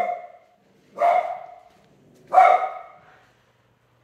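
Dog barking: three single loud barks, one right at the start and then about one every second and a quarter.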